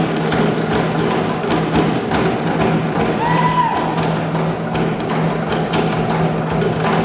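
Live Polynesian dance music: a fast, even beat on wooden percussion over a steady low tone, with a brief high rising-and-falling call about three seconds in.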